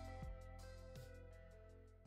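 Outro music with pitched notes, fading out.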